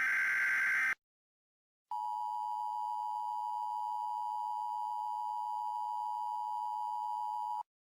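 Emergency Alert System tones. The last of the SAME header's digital data bursts ends about a second in. After a short gap comes the steady two-tone attention signal, held for nearly six seconds before it cuts off sharply.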